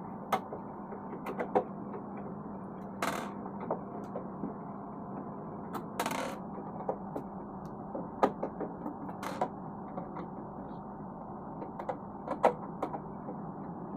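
Amplifier's metal case being opened by hand: small metallic clicks and taps, with three longer scrapes about three seconds apart, over a steady low hum.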